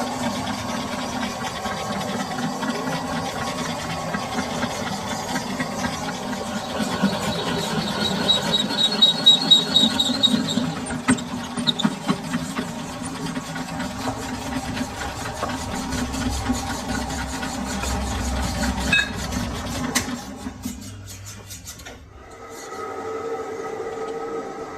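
Lathe running with the cutting tool squealing against metal as it turns, over a steady machine hum. The sound drops away about 21 seconds in and a steadier tone takes over.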